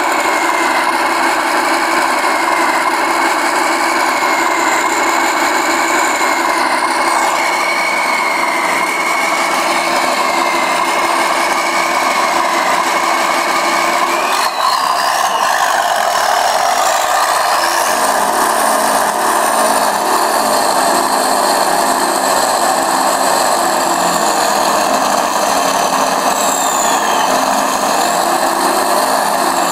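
Simulated diesel truck engine sound from a Benedini TBS Mini RC sound module, played through a small portable speaker box: a steady engine run with a wavering whistle in the first half. About halfway through, the sound changes as the transmitter throttle stick is worked, with short high whistles near the end.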